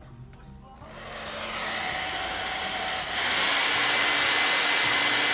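Hair dryer blowing steadily, drying a coat of paint so a second coat can go on. It starts up about a second in and gets louder about three seconds in.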